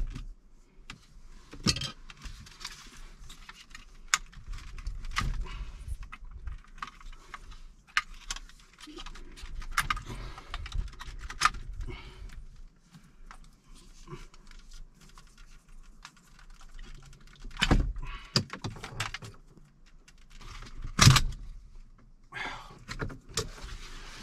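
Hard plastic dash switch panel and its wiring-harness connectors clicking and rattling as they are worked loose and unplugged by hand; the factory connectors are really tight. Two louder knocks come in the last third.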